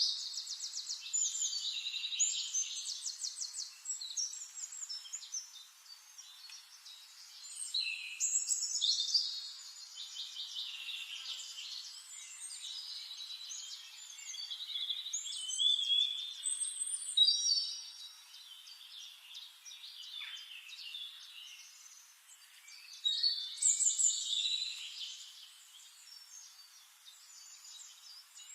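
Several songbirds singing, with chirps and rapid trills in bursts of song that come and go every few seconds.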